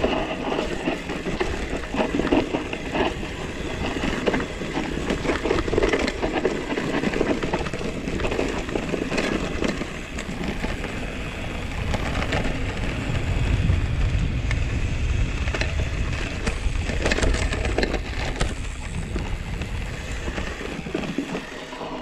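Mountain bike rolling fast over a bumpy grass meadow: wind buffeting a GoPro's microphone with a heavy low rumble, tyres on grass, and frequent clicks and rattles from the bike over the bumps.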